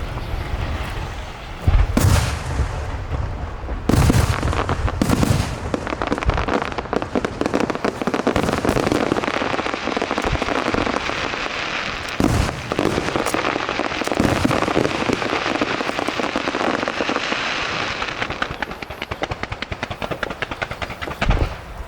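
Aerial fireworks bursting: a few deep booms, about two, four, five and twelve seconds in, with dense rapid crackle effects running between them and thinning near the end.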